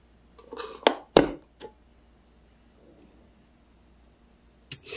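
Snap-lock latches and lid of a stainless steel food storage container being unclipped and opened: a few sharp clicks and knocks in the first second and a half, the loudest about a second in. A few light knocks follow near the end as a carrot is lifted out.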